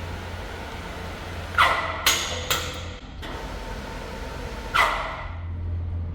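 Four sharp bangs over a steady low hum: three close together about a second and a half in, and one near five seconds. The first and last are the loudest, and each leaves a short ring.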